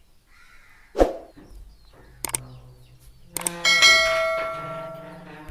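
Subscribe-button animation sound effects: a thud about a second in, a couple of mouse clicks, then a bell ringing and slowly fading over the last two seconds.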